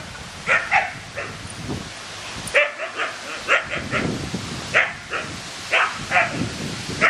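Siberian huskies barking in play: about a dozen short, sharp barks in quick, irregular bursts.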